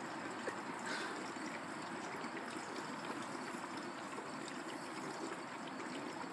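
Gasoline pouring in a steady trickle from a gas can into a tractor's fuel tank, which is guzzling it down.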